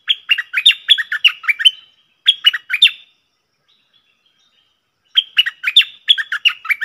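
Stripe-throated bulbul singing: three bursts of quick, clear notes. The first and last run about two seconds each, with a short burst of three notes between them.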